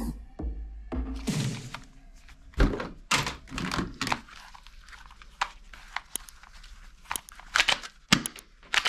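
Hard plastic toy guns knocking and clattering together as they are handled in a cardboard box, with a run of sharp, separate clicks and taps in the second half.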